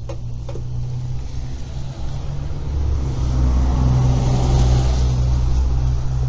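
A car engine running close by, its steady low hum growing louder through the middle and easing a little near the end. Two light clicks right at the start.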